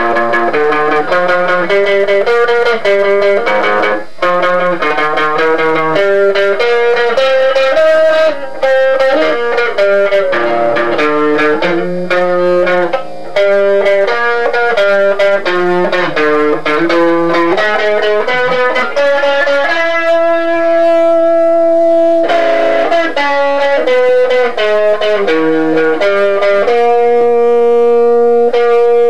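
Electric guitar playing a solo: quick runs of notes, with long held notes about two-thirds of the way through and again near the end.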